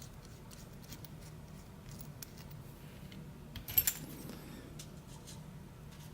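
Small metal clicks and scrapes as a steel retaining ring is worked off an ASSA d12 lock cylinder, with a brief sharper cluster of clicks about two-thirds of the way in.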